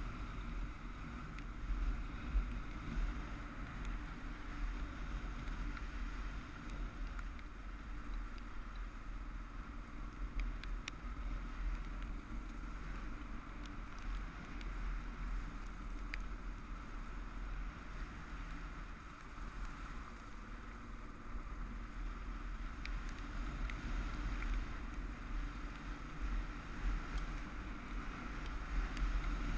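Motorcycle engine running at a steady cruise over a gravel track, with wind rushing over the microphone and a few faint ticks.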